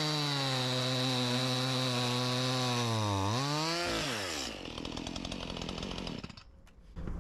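Stihl MS 211 two-stroke gas chainsaw running at high speed with a steady pitch. About three seconds in its pitch dips, swoops and falls away as the engine winds down, leaving a quieter rattling clatter.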